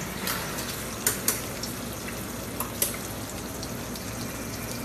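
Whole chicken sizzling in hot fat in a stainless-steel skillet on a stovetop burner: a steady frying hiss, with a few small clicks.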